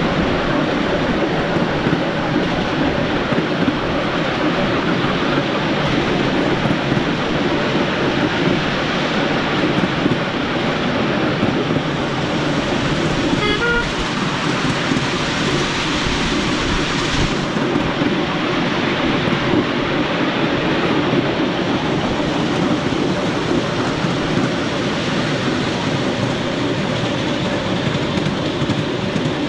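Miniature railway train running on its track, a steady rumble and rattle of wheels on rail, with a brief whistle-like toot about halfway through.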